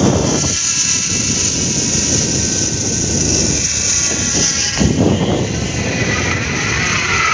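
Zipline trolley pulleys running along a steel cable with a continuous whirring whine, under heavy wind rush on the microphone during the ride. The whine shifts in pitch near the end.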